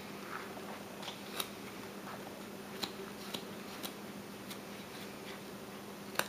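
Carving knife cutting into a small block of wood: a string of short, sharp clicks and snaps as the blade bites and chips break away, spaced about half a second to a second apart.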